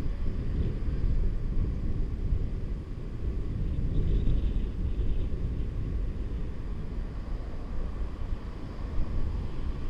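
Wind rushing over a head-mounted GoPro's microphone while riding a bicycle, a steady low rumble.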